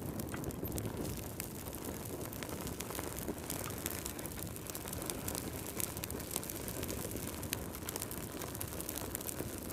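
Wood fire crackling steadily: a low rumble of burning with many small, sharp pops and snaps all the way through.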